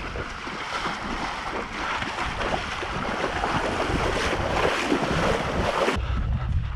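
People wading through shallow pond water, a steady, dense splashing of legs pushing through it. Near the end it cuts off abruptly, leaving wind rumbling on the microphone.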